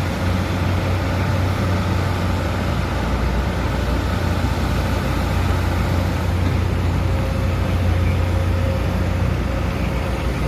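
Heavy diesel engine of a Hyundai HX340SL crawler excavator running steadily under load, a deep even hum with a faint steady whine above it.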